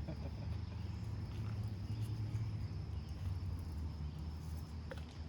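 Outdoor ambience: a steady high insect drone over a steady low rumble, with a faint click or two near the end.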